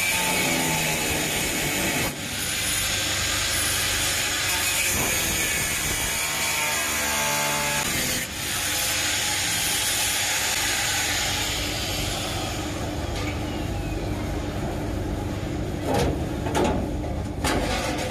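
Electric angle grinder with a cutting disc running steadily as it cuts through the sheet-steel floor pan of a 1950 Chevrolet 3100 pickup cab, dipping briefly twice as the disc comes off the metal. Near the end come a few sharp knocks and clanks as the cut-out panel is worked loose.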